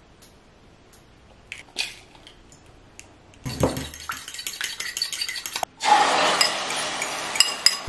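An egg cracked into a ceramic bowl with a few sharp clicks, then whisked briskly with a fork, clinking against the bowl. A couple of seconds from the end the beaten egg is poured into a hot frying pan and starts sizzling with a loud, steady hiss.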